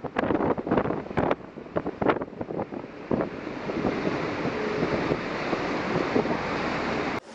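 Storm wind buffeting the microphone in rapid gusts, then settling into a steady rush of wind and breaking seas over a cargo ship's bow. The sound breaks off for an instant near the end.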